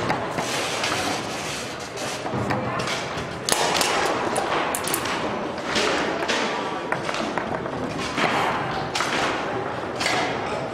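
Tornado foosball table in fast play: an irregular string of sharp knocks and thuds as the ball is struck by the figures and the rods are slammed and spun.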